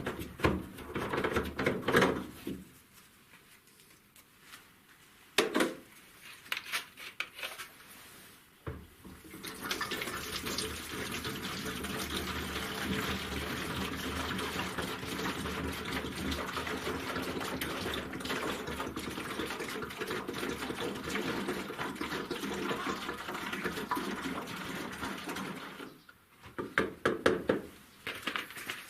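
Diesel fuel poured from a 1.5-litre plastic bottle into a diesel air heater's fuel tank: a steady pour lasting about sixteen seconds. A few knocks and clicks of handling come before and after it.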